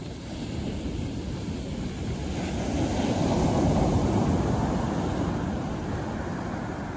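Ocean surf on a sandy beach: a wave breaking with a rushing wash that swells to its loudest about halfway through, then slowly dies away.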